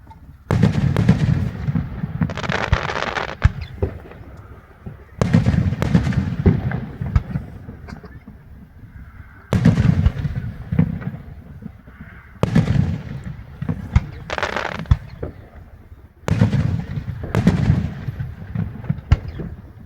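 Fireworks bursting: five loud booms three to four seconds apart. Each is followed by a couple of seconds of rumbling echo and crackling pops, some with a hissing fizz.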